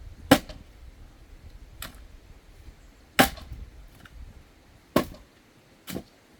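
Axe blows splitting firewood: five sharp cracks of the axe striking logs, the loudest two about a third of a second and three seconds in, another near five seconds, and lighter knocks between them and near the end.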